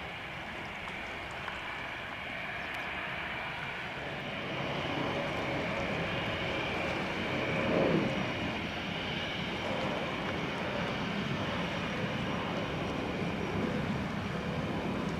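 Jet engines of an Airbus A321, CFM56 turbofans, running at low power as it taxis on the runway. They give a steady high whine over a rushing hiss that grows a little louder about halfway through.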